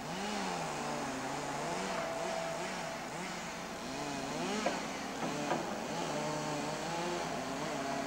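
Chainsaw engine revving up and down again and again as the throttle is worked, with a sharp knock about halfway through.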